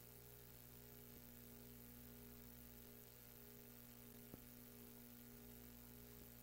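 Near silence: a faint steady hum and hiss, with one faint click a little over four seconds in.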